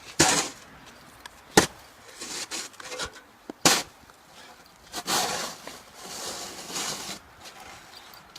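Wood being struck and scraped, as a chainsaw is worked against a tree by hand without its engine running. There are three sharp knocks, with rasping scrapes between and after them.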